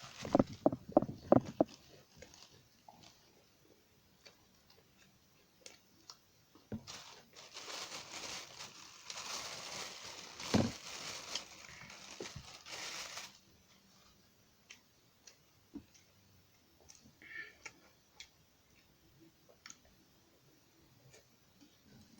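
Close-miked eating sounds of tofu and bird's eye chilies: a quick run of loud mouth noises at the start, then quiet chewing clicks. About a third of the way in there are several seconds of rustling and crinkling, with one sharp crunch in the middle of it.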